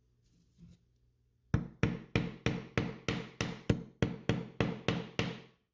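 A small hammer taps the trigger pin into the trigger guard of an SMLE Mk III* rifle: about a dozen sharp strikes at a steady three or so a second, starting about a second and a half in.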